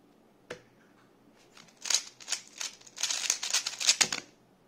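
GAN 13 Maglev speedcube's layers being turned fast by hand, a rapid run of plastic clicks and clacks lasting about two seconds. A single click comes about half a second in, and a dull knock comes as the turning stops.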